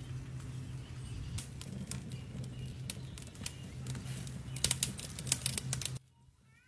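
Steak pinwheels sizzling and crackling on a grill under a low steady hum, with a quick run of sharp pops about four and a half seconds in. About six seconds in the sound drops away sharply, leaving faint bird chirps.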